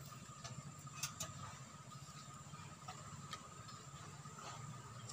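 Faint, scattered light ticks and taps from green bamboo sticks being handled and knocked together while a bamboo toy gun is put together, over a faint steady hum.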